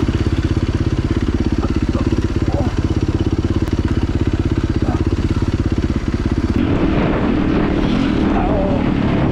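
Small motorcycle-type engine running steadily with a rapid, even pulsing; the sound changes character about two-thirds of the way through.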